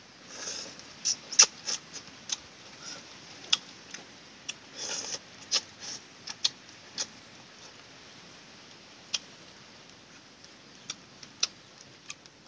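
Close-up eating noises of a person eating soup with chopsticks: an irregular run of sharp chewing and chopstick clicks, with two short slurps about half a second and five seconds in. The clicks thin out in the second half.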